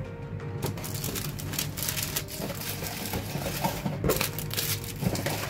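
Clear plastic treat bags crinkling and rustling, with many small irregular clicks, as hands pack and handle pieces of chocolate.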